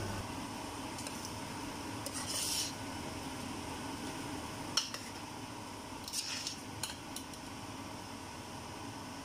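A metal spoon scraping and clinking against a stainless steel pot as chicken and potato curry is stirred. There is one scrape about two seconds in, a sharp clink near the middle and a few lighter clicks after it, over a steady low hum.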